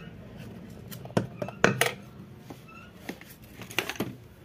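Sharp metallic clinks and taps of a screwdriver working against the metal housing of a ceiling fan motor, a string of separate hits with the loudest coming between one and two seconds in.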